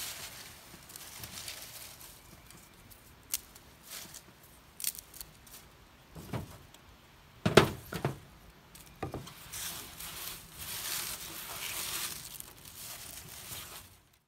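Dry leaves rustling and crunching as they are handled and stuffed into a hobo stove, with a few sharp knocks of wooden pieces being handled, the loudest a little past halfway.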